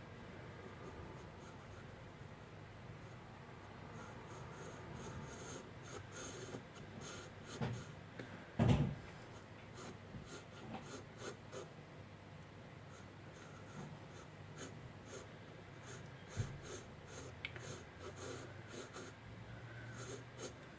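Pencil scratching on sketchbook paper in many short strokes, with one dull thump a little under halfway through.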